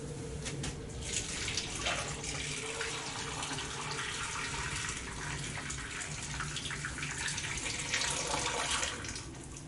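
Water being poured steadily into a cooking pot packed with a chicken and vegetables, filling it for a thermal-cooker stew; the pouring stops shortly before the end.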